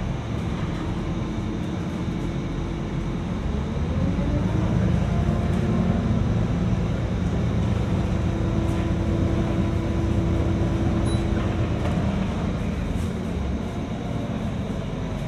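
City bus on the move: a steady low rumble, with a drive note that rises as the bus speeds up about three seconds in, holds steady, and eases off about twelve seconds in.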